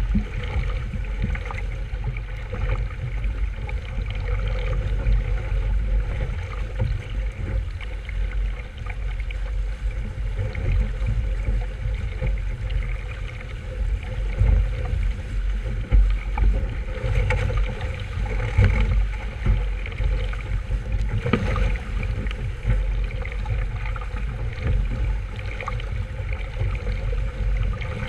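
Wind buffeting the microphone in gusts over the wash of water along the hull of a sailboat under way.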